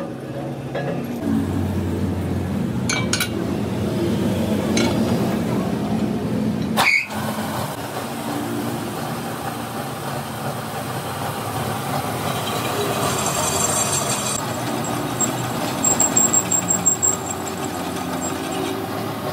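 Metal-turning lathe running, its cutting tool turning a steel truck rim plate: a steady machine drone, with a sharp knock about seven seconds in and a fast, high ticking near the end.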